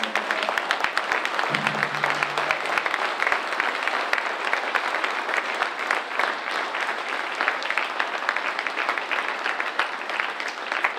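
Audience clapping loudly and steadily.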